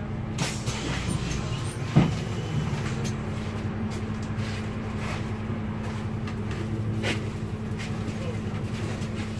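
Cabin sound of a Solaris Urbino 8.9LE city bus on the move: a steady engine and road hum with light rattles, and one sharp knock about two seconds in.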